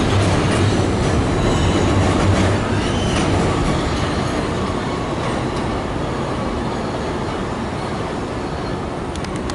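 R160 subway train pulling out along an elevated steel structure, its wheels rumbling and clattering on the rails with a brief squeal. The sound fades steadily as the train moves away.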